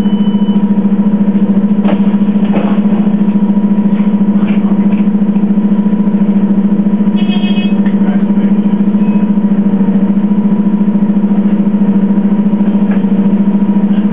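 Orion VII bus's Detroit Diesel Series 50G natural-gas inline-four engine idling, a steady deep hum with a fast, even throb. A brief high squeak sounds about seven seconds in.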